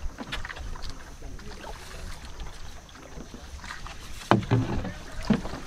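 Water sloshing and lapping around a small boat being pushed along with a bamboo pole, with scattered small knocks and a couple of louder thumps near the end.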